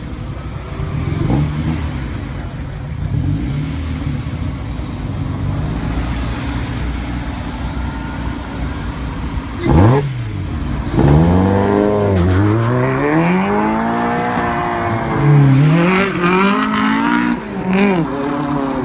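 A car engine running with a steady rumble, then a sudden sharp crack about ten seconds in. After that the engine is revved hard several times, its pitch climbing and falling with each blip.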